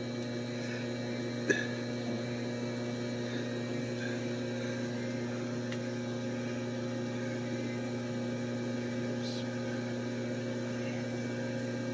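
Steady electrical hum, a low drone with several even overtones, with a small click about a second and a half in.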